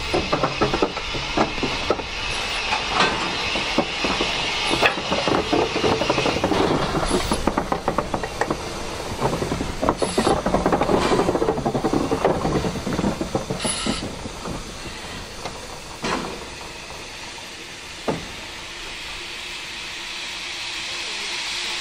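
Ivatt Class 2MT 2-6-2T steam tank locomotive moving slowly past at close range, its wheels and motion clanking and knocking with a steam hiss. After about two-thirds of the way through the clanking dies away as it comes to a stand, leaving a steady steam hiss with two single knocks, the hiss swelling near the end.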